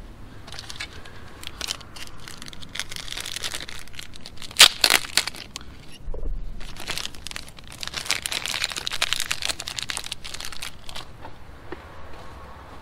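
Crinkling and rustling of plastic being handled, with scattered sharp cracks, loudest twice and with a pair of sharp cracks a little under 5 s in. It fades near the end.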